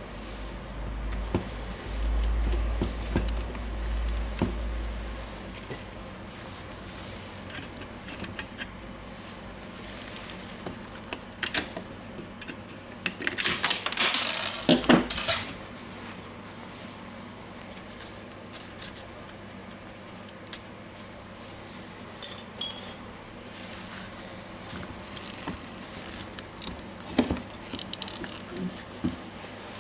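Hands taking apart a DeWalt DCH273 cordless rotary hammer: scattered clicks and clinks of metal and plastic parts being handled, with a low rumble in the first few seconds and a louder spell of clattering about halfway through.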